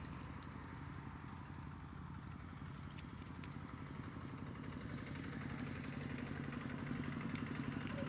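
A small engine running steadily at idle, a fast, even low pulsing that grows a little louder toward the end.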